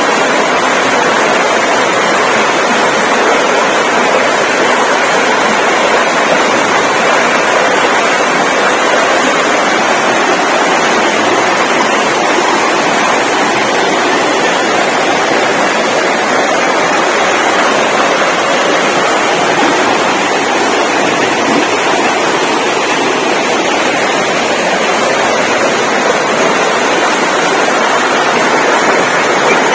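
Steady, loud rushing noise with no breaks or changes in level.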